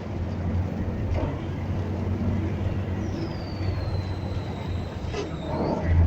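Vehicle running with a steady low hum. About halfway through, a thin high squeal glides down in pitch for about two and a half seconds, and there is a single knock near the end.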